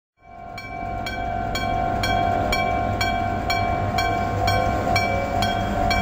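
Electromechanical striking bell of a Japanese railway level crossing ringing, struck about twice a second, each strike ringing on: the crossing warning is active for an approaching train. A low steady rumble sits underneath.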